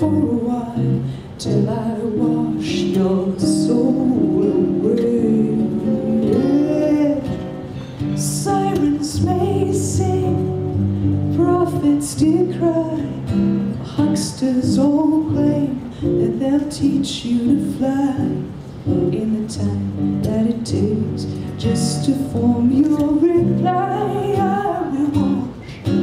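A woman singing a song while strumming an acoustic guitar.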